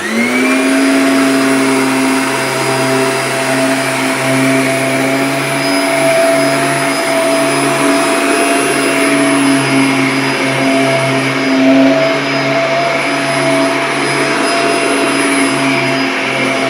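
Kirby G6 upright vacuum cleaner just switched on, its motor winding up in pitch at the very start and then running steadily with a high whine as it vacuums a mattress.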